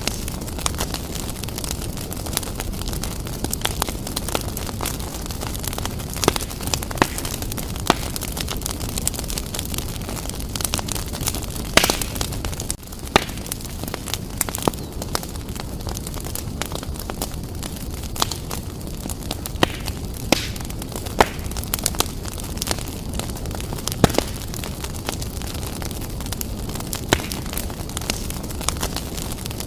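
Wood fire burning briskly in a fireplace: a steady low rumble of flames with frequent irregular crackles and pops from the burning logs, a few of them sharply louder.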